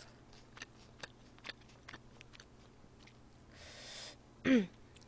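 Close-miked eating sounds: faint scattered mouth clicks from chewing and light utensil ticks while udon noodles are lifted with a metal ladle and chopsticks. A brief soft hiss comes near the middle, and a short hum falling in pitch follows about four and a half seconds in, the loudest sound.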